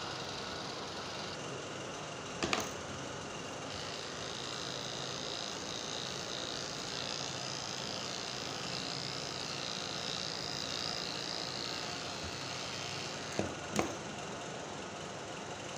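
Electric pet hair clippers buzzing steadily as they cut through a cat's fur, with a sharp click about two and a half seconds in and two more close together near the end.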